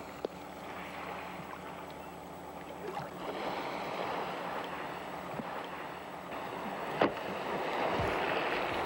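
Sea water sloshing with wind noise, heard from a small boat on the water, with two faint knocks: one just after the start and one about seven seconds in.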